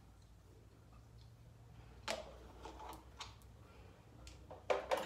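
Light clicks and taps of a plastic face-cream jar being handled and opened: one about two seconds in, a few more around three seconds, and a louder cluster near the end, over a faint steady low hum.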